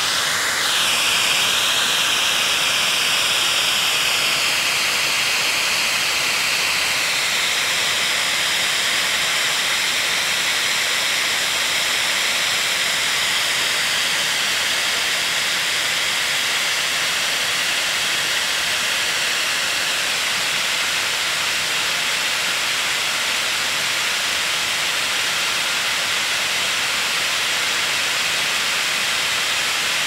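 Vacuum cleaner running steadily: an even rush of air with a faint high motor whine.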